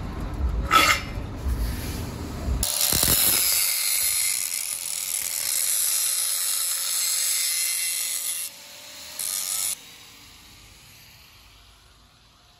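Rough scraping and knocks on steel for the first couple of seconds. Then an angle grinder with an abrasive disc grinds a steel weld, a loud hiss over a steady whine. The disc lifts off about eight and a half seconds in, bites once more briefly, then the grinder winds down and fades.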